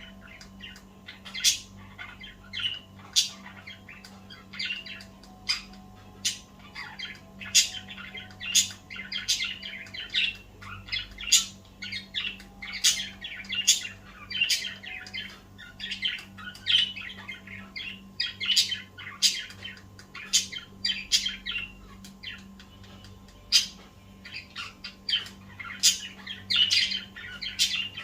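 Budgerigar chirping and chattering: a continual run of short, sharp, high calls and squawks, several a second in places, over a faint steady low hum.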